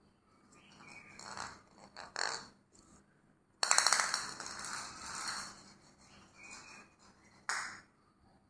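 Green ridged plastic ball being batted by a cat and rolling across a polished stone floor: short scrapes first, then a loud rolling rattle of rapid clicks starting suddenly about three and a half seconds in and lasting about two seconds, and one more brief scrape near the end.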